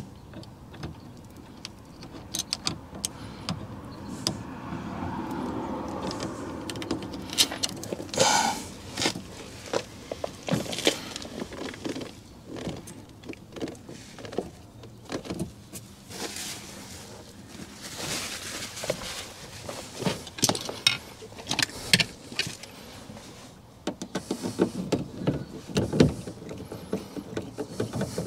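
Scattered clicks, taps and small metallic rattles of hand work on a car door: self-tapping screws and a screwdriver handled while a speaker is fixed into its adapter in the door panel, with a few louder knocks.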